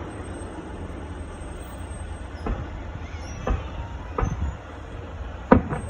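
Fireworks going off: about five irregular sharp bangs, two close together near the end, over a steady low rumble.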